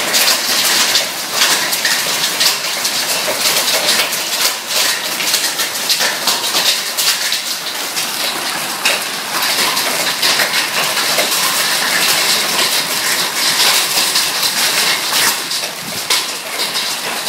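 Hailstorm with rain: a dense, steady clatter of hailstones pelting down on concrete and the ground around.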